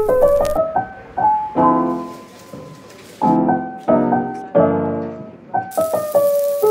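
Background music: a piano playing chords and a melody, struck in short phrases that ring out and fade.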